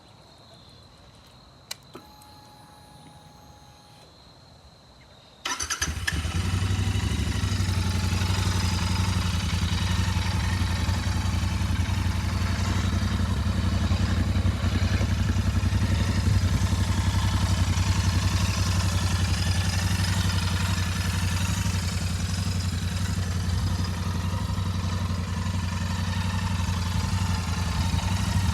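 Royal Enfield Interceptor 650's 648 cc parallel-twin engine with stock exhaust: a click a couple of seconds in, then the engine starts about five seconds in and settles into a steady idle.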